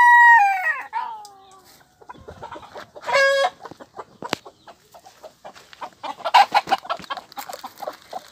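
The end of a rooster's crow, falling away in the first second, then a short call about three seconds in. Near the end, a mother hen with newly hatched chicks clucks in a quick run of short clucks.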